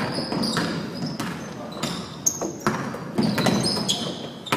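A basketball dribbled on a gym's hardwood court, with sharp bounces and short high sneaker squeaks echoing in the large hall.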